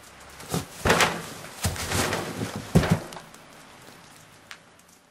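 A person moving off through snow: a few rough crunching and rustling noises in quick succession, the sharpest near three seconds in, then fading away.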